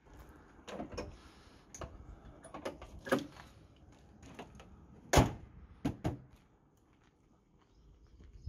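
A few light knocks and clicks, then a Land Rover's bonnet slammed shut with one sharp bang about five seconds in, followed by two lighter knocks.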